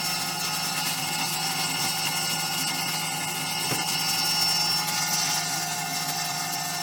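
The spindle of a 3040 desktop CNC router runs at about 10,000 RPM while a 3 mm slot end mill cuts 4 mm aluminium plate at a slow feed. The sound is a steady whine made of many held tones.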